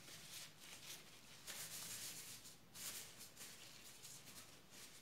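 Faint rustling and crinkling of clear plastic food-handling gloves as hands scoop and press a grated-coconut and condensed-milk mixture, in soft swishes, a little louder about a second and a half in and again near three seconds.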